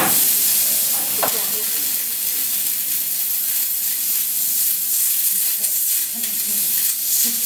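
750 W fiber laser cutting 8 mm carbon steel plate: a steady, mostly high-pitched hiss of the cut and its assist-gas jet as sparks spray off the work. A short sharp click about a second in.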